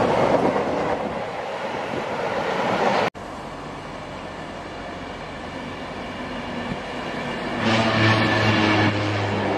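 Freight train wagons rolling past, then after an abrupt cut a Class 390 Pendolino electric train approaching and passing close. From about eight seconds in it carries a loud, low steady hum with several overtones.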